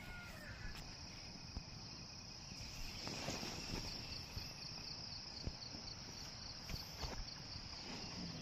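Night insects chirring in a steady high-pitched trill. A second, pulsing insect call joins about three and a half seconds in, and a few faint knocks sound now and then.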